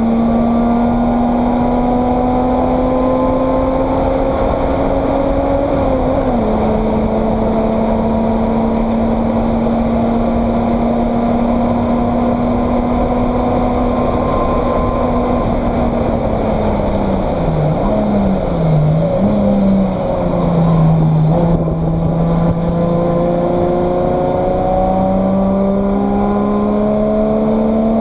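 Race car engine heard from inside the stripped cabin under load on track. Its note climbs slowly, drops slightly about six seconds in, then falls and wavers up and down for a few seconds about two-thirds of the way through before climbing again near the end.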